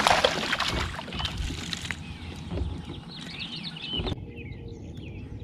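Water splashing beside a kayak as a hooked bass is played in, with a few sharp clicks and birds chirping. The background changes abruptly about four seconds in.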